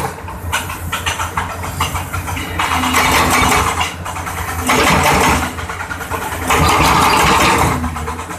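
Excavator's diesel engine running steadily while its hydraulic breaker hammers concrete in three bouts of rapid blows, starting about two and a half, four and a half and six and a half seconds in.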